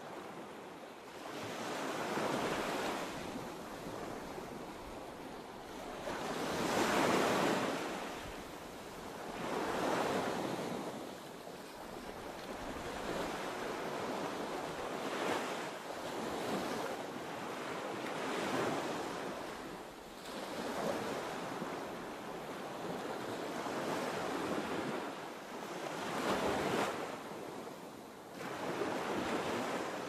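Ocean surf: waves washing in and receding, the rush of water swelling and fading every few seconds.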